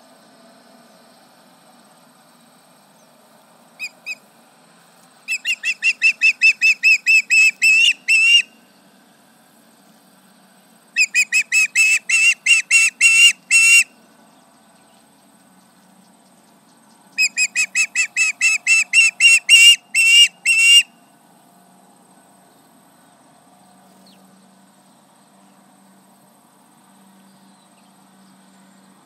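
Osprey giving repeated alarm calls: two short notes, then three bouts of about three seconds each of rapid, high-pitched, loud call notes, roughly five a second.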